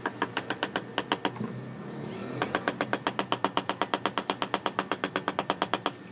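Rapid, even tapping of a hammer's wooden handle butt on a 16-inch ceramic floor tile, settling it into the mortar bed. A few taps come first, then a short pause, then a steady run of about seven taps a second.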